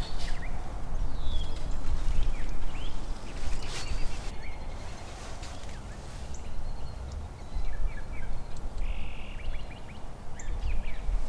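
Small birds chirping in short calls over a steady low rumble of outdoor ambience.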